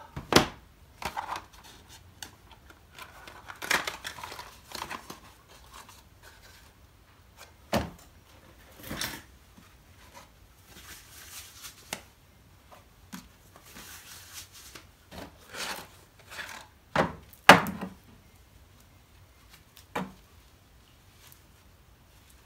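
Handling noises of a new chainsaw saw chain being taken out and looked over: short rustles of packaging with scattered clicks and knocks, the loudest a few sharp knocks near the start and about three-quarters of the way through.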